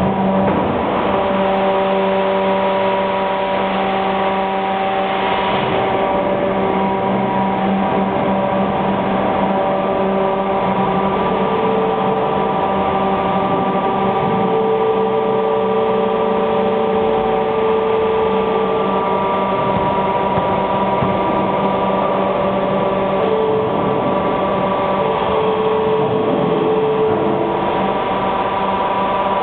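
AAC block cutting machine running as its motor-driven cutting carriage works through an aerated concrete cake. A loud, steady machine hum with several held tones over a dense mechanical noise. Some of the higher tones come and go.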